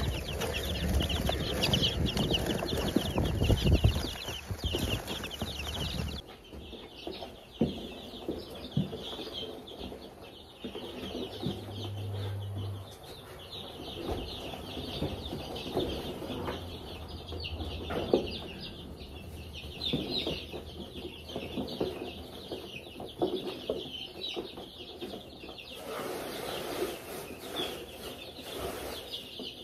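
A brood of baby chicks peeping continuously in a dense, high-pitched chorus, with scattered short knocks and rustles from handling.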